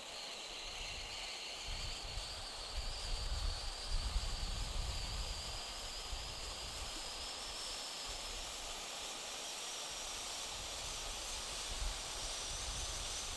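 Gaoo F25 volcano ground fountain firework spraying sparks with a steady hiss and a faint high tone that slowly rises. Gusts of wind rumble on the microphone now and then.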